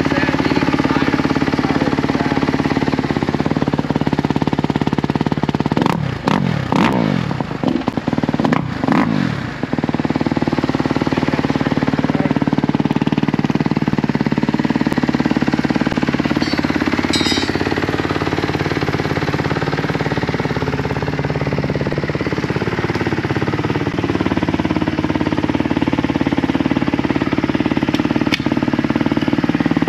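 A 2020 Kawasaki KX250F dirt bike's single-cylinder four-stroke engine running steadily. It is revved sharply several times about six to ten seconds in, and its pitch then rises and falls more gradually.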